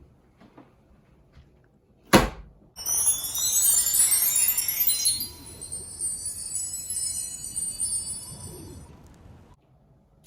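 A single sharp knock, then a shimmer of many high ringing chimes that swells up and slowly fades away over about six seconds, in the manner of a cartoon twinkle sound effect.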